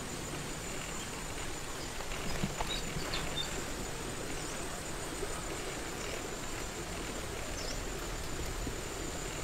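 Outdoor ambience: a steady hiss with a thin, high, steady whine, and a few faint short chirps about two to three seconds in and again near the end.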